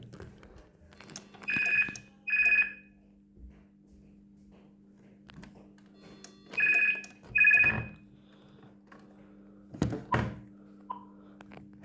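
Poss DP1305 cordless phone ringing with an electronic two-tone ring in a double-ring pattern, two short rings, a pause of a few seconds, then two more, over a low steady hum. A few clicks and thumps sound near the end.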